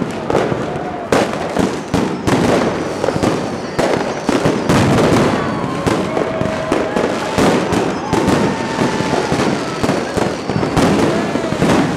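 Aerial fireworks and firecrackers going off all around: a dense, unbroken string of bangs and crackles, many overlapping.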